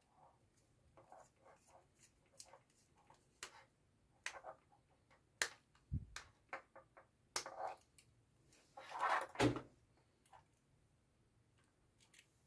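Hand-handling noise of a screwdriver working the terminal screws of a push-button contact block and of the plastic-and-metal switch parts: scattered small clicks, scrapes and rattles, with two duller knocks, one about six seconds in and one about nine and a half seconds in.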